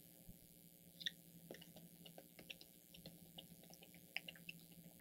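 Faint, scattered small wet clicks and taps of paint being mixed on a palette, over a low room hum.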